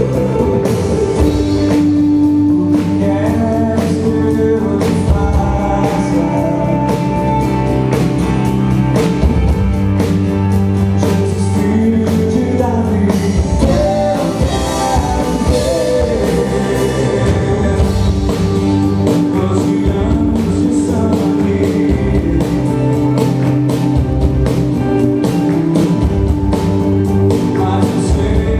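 Live Christian rock worship band playing: a man singing over acoustic guitar, electric bass and drum kit.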